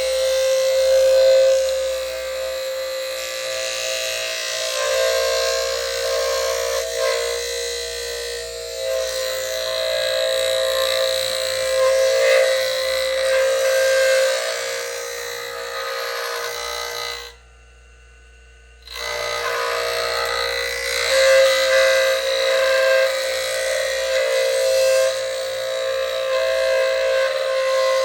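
Foley 355 sharpener grinding two planer blades: a steady motor hum with a grinding hiss. The sound cuts out for about a second and a half about two-thirds of the way through, then starts again.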